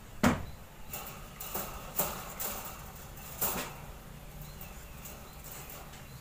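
Baby otter moving about in a wire-mesh cage: a few short knocks and rustles against the cage, the loudest just after the start.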